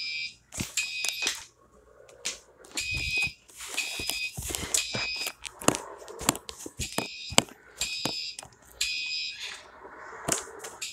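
Fire alarm horn sounding a temporal-3 evacuation pattern: three short blasts, a pause, then three again. Sharp knocks and clicks come in between.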